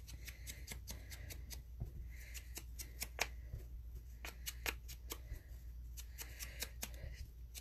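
A craft sponge being tapped on an ink pad and dabbed around a paper piece on a mat: quick, irregular soft taps and brushing, several a second.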